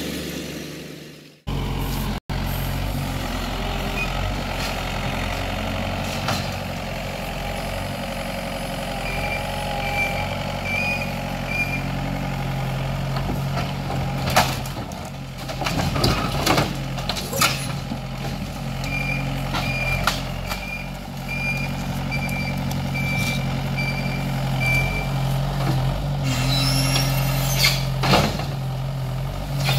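Compact track loader's engine running steadily, with its backup alarm beeping in two spells while it reverses. Loud knocks and crashes of wooden debris as the grapple bucket shoves and drops broken boards.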